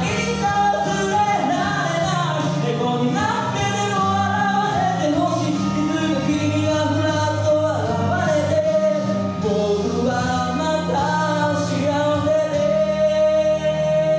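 Male vocalist singing with an instrumental backing, ending on one long held note in the last few seconds.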